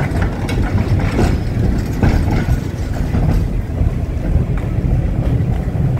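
A San Francisco cable car rolling along its rails to the turntable at the end of the line, with a few clanks over a steady low rumble.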